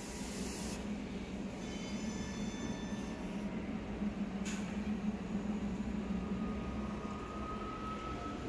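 Battery-electric Bustech ZDI bus standing at the stop: a steady hum from its electric drive and auxiliaries. A thin electric whine comes in about six seconds in and rises slightly, and there is a brief hiss about four and a half seconds in.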